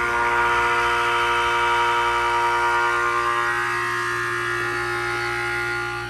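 1989 Carrier TECH2000 heat pump (38YG) as defrost is forced: a sudden, high, many-toned whistling rush of refrigerant, typical of the reversing valve shifting and pressures equalizing. It is loudest at the start and thins out after about three seconds, over a steady low hum.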